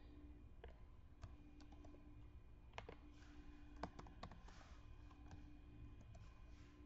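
Faint, irregular clicks of a computer keyboard and mouse while text is entered, over a low steady hum.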